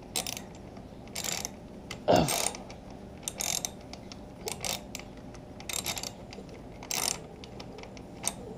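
Socket ratchet wrench clicking in short spells as it is swung back and forth on a bolt. A brief falling-pitch sound about two seconds in is the loudest moment.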